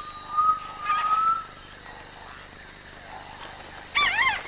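Forest animal sounds, likely birds: a thin whistled note held for about a second and a half at the start, rising slightly at its end, then a short, loud call with a wavering pitch near the end.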